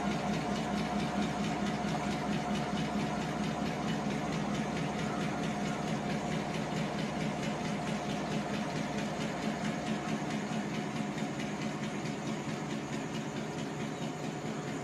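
Diesel locomotive's engine idling steadily with an even, regular beat while it stands on a turntable; slightly fainter near the end.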